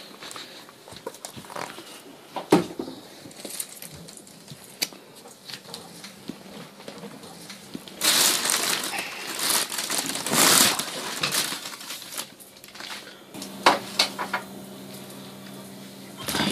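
Plastic bag rustling and crinkling, with small clicks and knocks of things being handled. The rustle is loudest for a few seconds just past the middle. A steady low hum comes in near the end.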